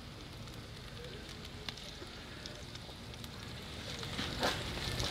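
Sliced onions sizzling faintly in olive oil in a cast-iron pan insert over a hot charcoal fire, with a few sharp crackles, growing a little louder near the end.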